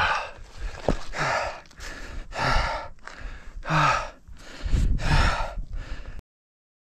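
A man's heavy, gasping breaths, five of them about one every second and a quarter, some with a short groan at the start: a rider winded after crashing his mountain bike. The sound cuts off abruptly about six seconds in.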